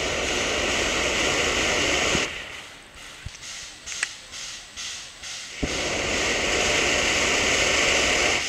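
Narrow-gauge steam locomotive blowing off steam low at the side of the track: two long, loud hisses, each starting suddenly. The first stops about two seconds in, and the second starts a little past halfway.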